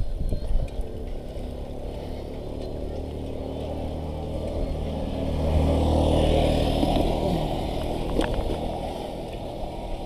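A passing motor vehicle's engine grows louder to a peak about six seconds in, then drops in pitch as it goes by.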